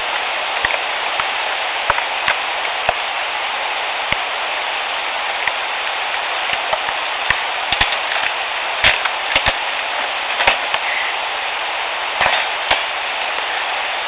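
Small, sharp snaps and pops, irregular and scattered, heard over the steady hiss of a field recorder, more of them about halfway through and again near the end. The recordist takes them for the mouth 'snaps and pops' of a sasquatch near the recorder.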